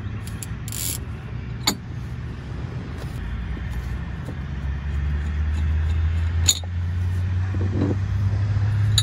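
A few sharp clicks and knocks, about two seconds in, about six and a half seconds in and again near the end, as a steering wheel is worked off its column, over a low steady engine hum that grows louder.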